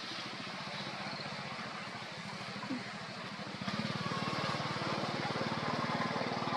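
A small engine running with a fast, even putter, growing louder a little past halfway.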